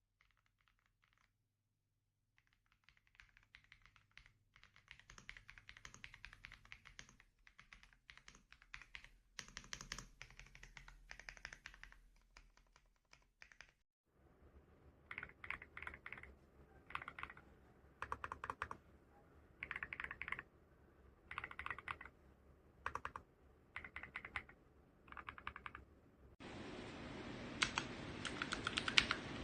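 Typing on a Royal Kludge RKR65 gasket-mount mechanical keyboard with GreenSand switches: fast keystroke clatter in runs, starting a couple of seconds in, then about halfway through breaking into short separate clusters of rapid presses. Near the end a steady hiss comes in under the typing.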